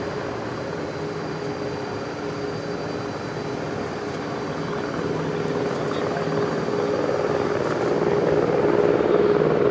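Aircraft engine noise: a steady drone with a low hum that grows louder over the last few seconds.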